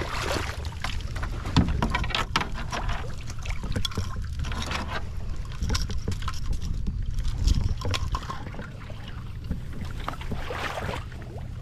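Irregular knocks and splashes of movement in shallow marsh water, with wind rumbling on the microphone.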